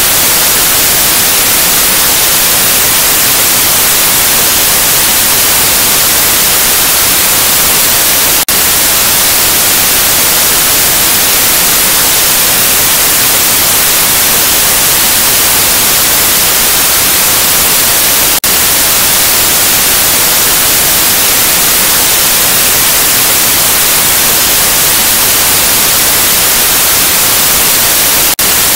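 Loud, steady TV static hiss, brightest in the treble, with two very brief dips in level.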